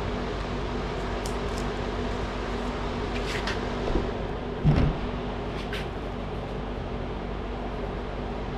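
Pliers working at a bolt stuck in a car tire's tread: a few scattered metallic clicks and one heavier thump about halfway through, over a steady hum.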